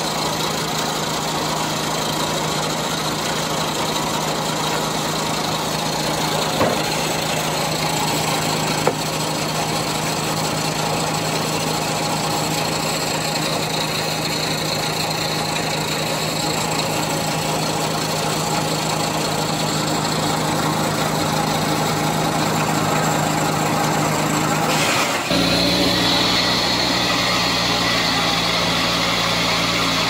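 The engine driving an old circular sawmill, sounding like a truck engine, runs steadily at idle. Two sharp knocks come about 6 and 9 seconds in. About 25 seconds in, the sound changes and becomes fuller and deeper.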